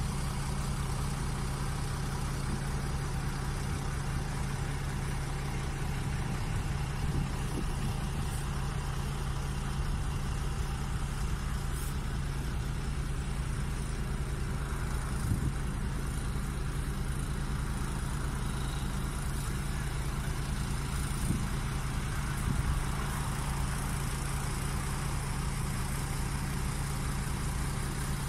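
Construction machine engine running steadily, a constant low drone that does not change in speed.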